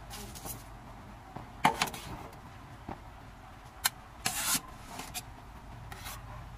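Faint handling noises: a few short plastic-bag rustles and scattered sharp clicks, the sharpest about two and four seconds in, over a low steady hum.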